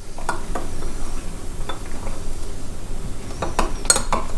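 Metal soup spoon scraping and clinking in a Pyrex glass cup as ground Turkish coffee is stirred into hot water, with a few sharper clinks.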